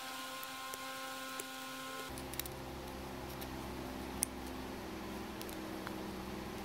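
A few faint clicks from plastic wiring-harness connectors being handled and pushed onto direct-injection fuel injectors on a fuel rail, one sharper click about four seconds in. Under them is a steady background hum that gets deeper about two seconds in.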